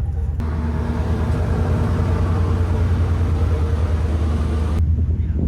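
Passenger ferry's engines running with a steady low drone. About half a second in, a steady hiss joins it and cuts off again near the end.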